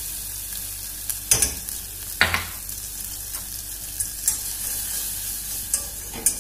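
Butter sizzling in a stainless saucepan over a gas flame as a spoonful of flour is added and whisked in to start a béchamel roux. A few knocks of the spoon and whisk against the pan, the loudest about two seconds in.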